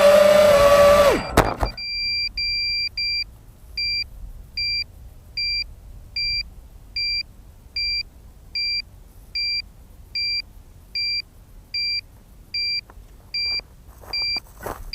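FPV drone motors whining at a high, wavering pitch, then spinning down sharply and stopping about a second and a half in. After that the drone's beeper sounds short high beeps, evenly spaced about every 0.8 s.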